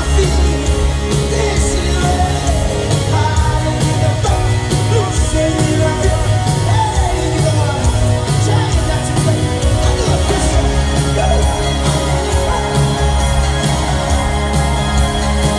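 Live rock band playing loud through a venue PA, recorded from the crowd: steady drums, electric guitars and keyboards, with sung vocals over them.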